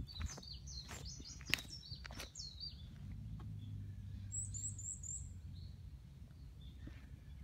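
Small songbirds chirping, several short high calls in the first two seconds and a quick run of about five chirps about four and a half seconds in, with a few sharp footstep clicks on the leaf-covered trail early on and a low rumble in the middle.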